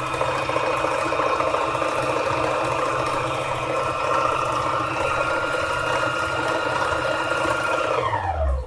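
Needle-felting machine running steadily as wool is punched under its needles, then slowing with a falling pitch and stopping near the end.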